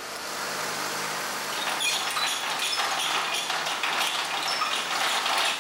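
Rain falling on the street and shop awning, with many close drops ticking, getting louder about two seconds in.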